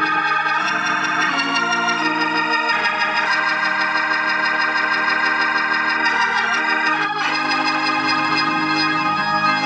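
Hammond organ playing sustained chords through its amplifier, on a sound check after the amp's cheap capacitors were replaced. The chords change a few times, with one held for about four seconds in the middle.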